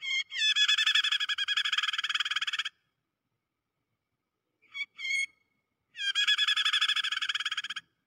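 A prenjak (prinia) giving its rapid, rattling chatter ('crecetan'), the distress call of a trapped bird used as a lure call. It comes in two bursts of about two seconds each, with two short notes between them.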